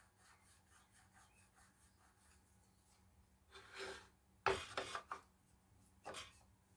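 Hand rubbing and scraping on wood: faint light scrapes, then three louder scrapes in the second half, the middle one starting sharply with a knock.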